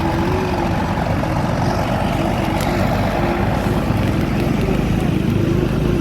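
Bus diesel engine running with a steady deep rumble, and a faint wavering tone coming and going over it.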